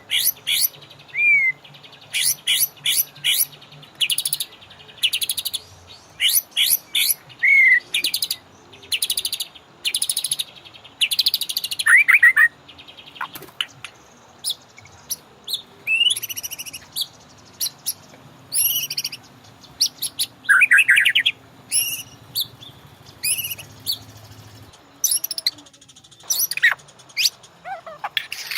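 White-rumped shama (murai batu) singing in bursts of quick, stuttering high notes, broken now and then by a slurred whistle.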